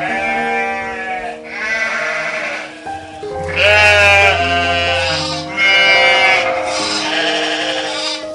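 A farm animal bleating repeatedly, about six wavering calls of roughly a second each, over background music with steady held tones.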